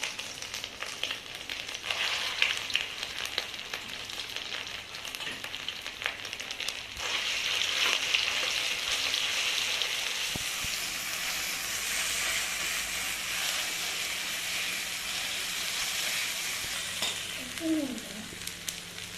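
Mustard seeds and green chillies frying in hot oil in a pan, a steady sizzle that grows louder about seven seconds in.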